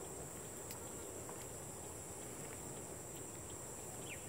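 Steady high-pitched insect drone over a field, like crickets, with one short falling chirp near the end.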